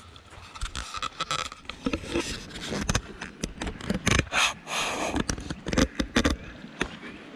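Footsteps crunching on rough ground, about two a second and uneven, with scraping and rustling close to the microphone.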